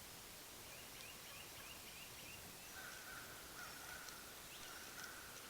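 Faint outdoor bird calls over a light hiss: a quick run of short, falling chirps about a second in, then two longer held notes in the second half.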